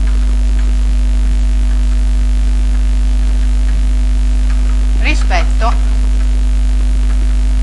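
Steady low electrical mains hum, with fainter steady higher tones over it, loud and unchanging throughout; one spoken word about five seconds in.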